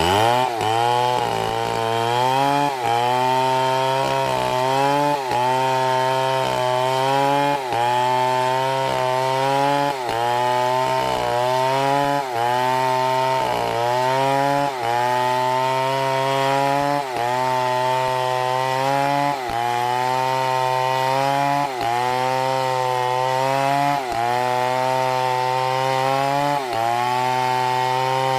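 Chainsaw engine revving up from idle and running hard as it cuts wood, its pitch sagging and recovering about once a second as the chain bites.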